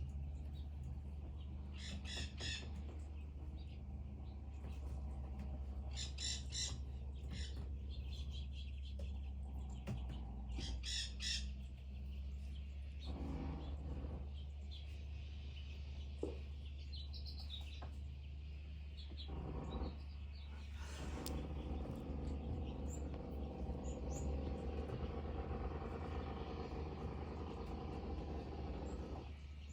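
Wild red-headed Mexican parrots calling with short, harsh, rasping squawks in bouts a few seconds apart, over a steady low hum.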